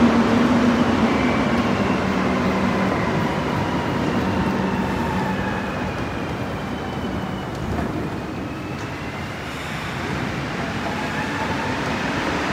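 Montreal Azur (MPM-10) rubber-tyred metro trains in the station, with the electric whine of their traction motors sliding down in pitch over the first half and rising again in the second half, over a steady station rumble.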